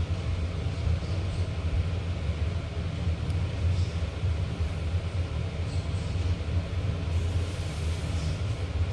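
A steady low rumble with no clear events.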